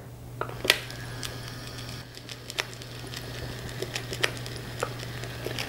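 LifePak 12 cardiac monitor's built-in thermal strip printer running, feeding out an ECG rhythm strip of a paced rhythm: a faint steady motor whir with scattered light clicks.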